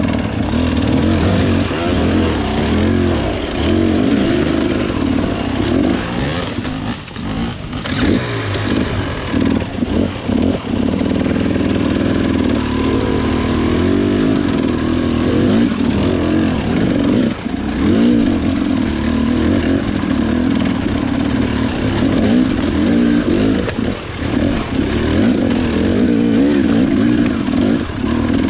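KTM XC 300 single-cylinder two-stroke dirt bike engine revving up and down in constant short bursts of throttle as it is ridden over rocks, its pitch wavering continually and dropping away briefly twice.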